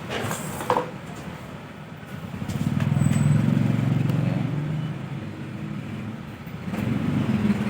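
Low engine rumble of a passing motor vehicle, swelling about two and a half seconds in, fading, then rising again near the end. Two short clicks come near the start.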